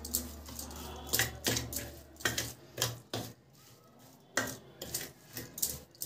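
Spoon scraping and clinking against a stainless steel plate in irregular strokes, stirring a coarse dry spice masala.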